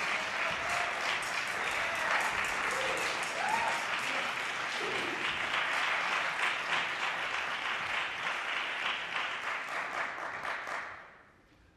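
Audience applauding steadily, with a few voices, then dying away about a second before the end.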